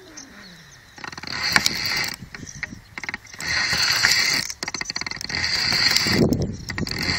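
Fishing reel whirring with fast clicking in three spells of a second or two, as a hooked pike is wound in.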